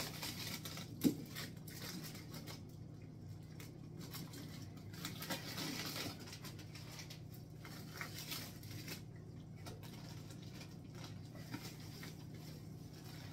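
Tomato sauce with meatballs simmering in a skillet on a gas burner, with soft spattering and small pops over a steady low hum. A single sharp knock about a second in.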